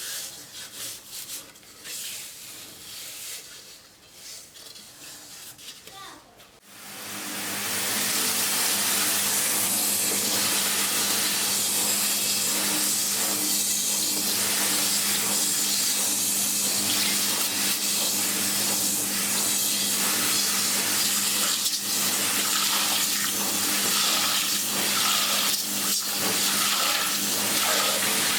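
Irregular rubbing or scrubbing strokes for about six seconds, then water starts running in a steady, even rush that carries on, with a faint low hum under it.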